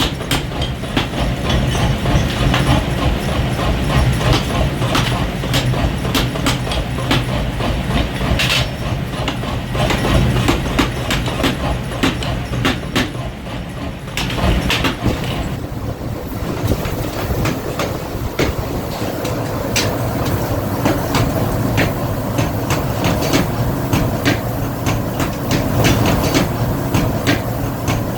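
Metal being hammered in a forge workshop: rapid, repeated hammer strikes over a steady machine hum, with a brief lull a little past halfway.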